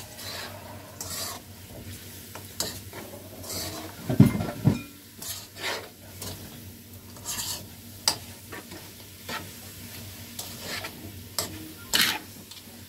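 A spoon stirring and scraping in a pot of pineapple cooking with sugar and spices, with irregular clinks against the pot and one low thud a little past four seconds in.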